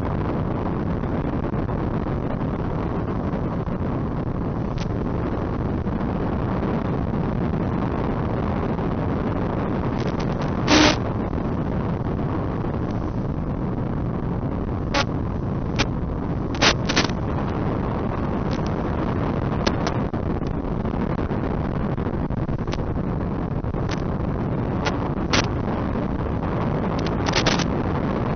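Steady rushing noise with no engine or motor tone in it, broken by scattered sharp crackles and pops, the loudest about eleven seconds in, on the audio of an RC P-38's onboard FPV video feed.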